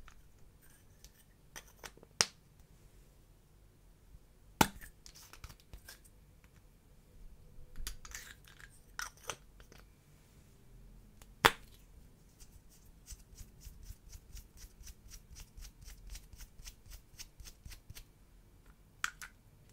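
Plastic lip balm and lipstick tubes handled by hand. A few sharp plastic clicks are heard as caps snap, then a run of quick ticking, about four a second, as a twist-up tube is turned.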